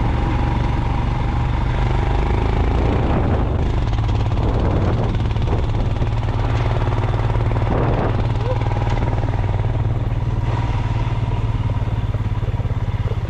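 Motorcycle engine running steadily while riding, a constant low drone under an even rush of noise.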